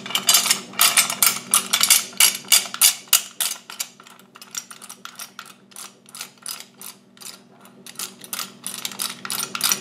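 Rapid ratchet-like clicking as the screw-on front barrel assembly of an APS ASR112 airsoft rifle is twisted off its upper receiver by hand. The clicks come about five a second and are loud for the first few seconds, then grow fainter and sparser.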